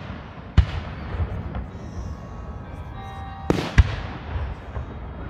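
Aerial fireworks shells bursting: a sharp bang about half a second in, then a louder burst with a short rushing crackle around three and a half seconds in, ending in another sharp bang.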